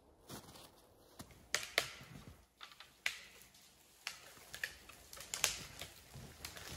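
Footsteps crunching through snow and brush: a string of irregular sharp crunches and cracks as someone walks across snow-covered ground littered with branches.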